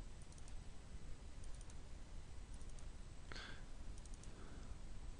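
Computer mouse clicks in quick pairs, a few times, as folders are double-clicked open in a file dialog, over a low steady background hum. A brief soft rustle a little past the middle.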